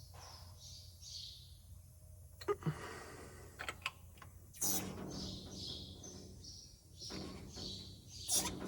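An air jack's release valve hissing briefly twice as the load is eased down: once about halfway through, then again near the end. Birds chirp faintly and there are a few light clicks.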